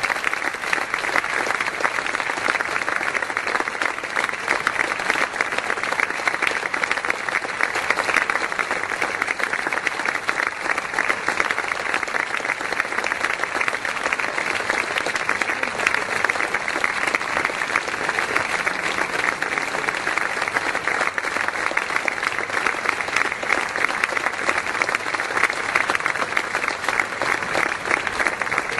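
An audience applauding in a long standing ovation: dense, steady clapping from many people that keeps an even level without swelling or dying away.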